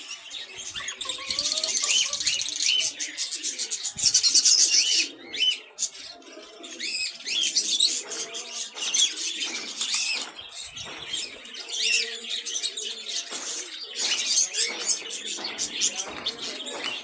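Many caged birds chirping continuously, with repeated bursts of wings flapping; the loudest flurry of wingbeats comes about four seconds in.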